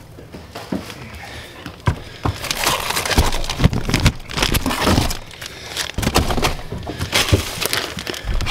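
Plastic bags crinkling and rustling as bagged whole chickens are handled and lifted out, with a few dull knocks as they are set down.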